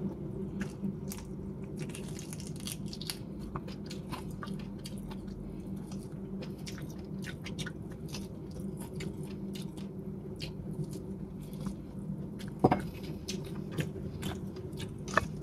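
Close-miked biting and chewing of salt-cured chicken, with small wet mouth clicks all through over a steady low hum. A couple of sharper clicks come near the end.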